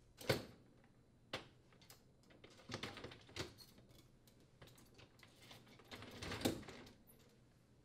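A wire upper dish rack and its plastic rollers clicking and rattling against the dishwasher's metal roller supports as the rack is set on the rails and slid back, in scattered faint clicks with a louder rattle near the end.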